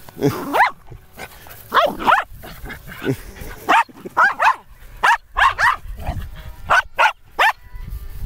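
Small dogs barking during play: about a dozen short, high yaps in quick irregular bursts, several rising in pitch.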